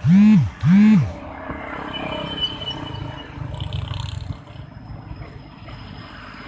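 Two short horn blasts from a KRD BIM diesel railcar, about half a second apart, each rising then falling in pitch. The train's low running sound follows as it approaches.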